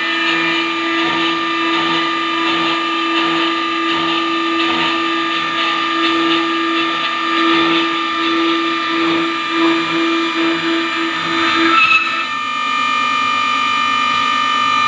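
Metal-cutting circular saw cutting stainless steel: a steady high-pitched ringing whine with a lower pulsing throb that quickens. About twelve seconds in the throb stops and only the steady whine of the spinning blade goes on.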